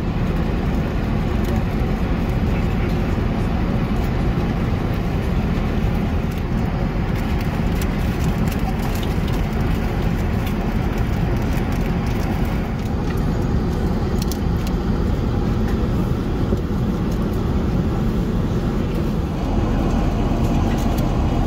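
Airbus A380 cabin noise in cruise flight: a steady low drone with a few faint clicks.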